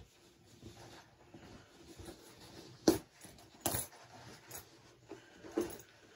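Rummaging: a few scattered knocks and clinks of hard objects being moved and handled, the loudest about three seconds in, another a moment later and a smaller one near the end.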